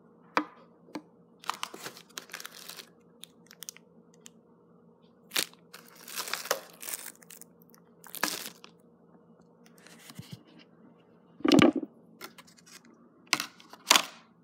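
Clear plastic packaging crinkling and tearing in irregular bursts, with a few sharp clicks. The loudest rustles come about two thirds of the way in and again near the end.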